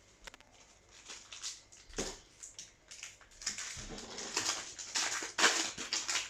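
Foil trading-card booster pack wrappers crinkling and tearing, with cards being handled: scattered crackles at first, then denser rustling from about three and a half seconds in.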